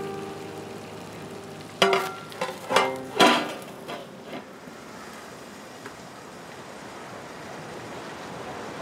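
Aluminium lid set down on a pan: a few metal clanks with a short ring about two to three seconds in. Then a whole chicken frying in oil sizzles steadily under the lid.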